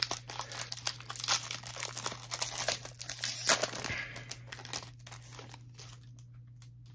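Shiny foil wrapper of a trading-card pack crinkling and tearing as it is pulled open and the cards are slid out, a dense crackle that dies down about five seconds in.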